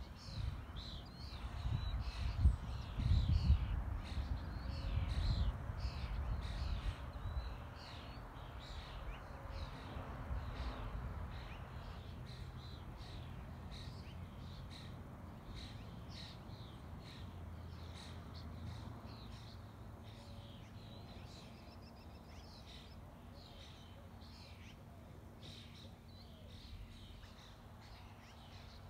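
Birds calling with many short, repeated chirps. Wind rumbles on the microphone for the first eight seconds or so, then dies down.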